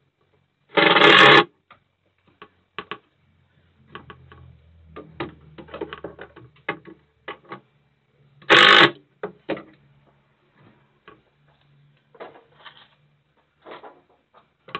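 Compact Makita cordless drill driver driving screws into plywood: two short loud bursts of the motor, about a second in and about eight and a half seconds in, with a fainter low hum in between, amid clicks and knocks of handling tools and fixings.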